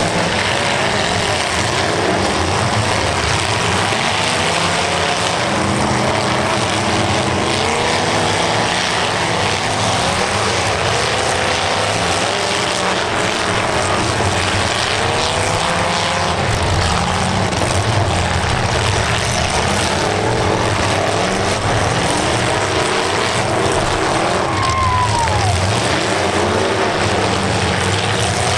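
Several demolition derby cars' engines running and revving at once, a steady din of overlapping engine notes rising and falling in pitch.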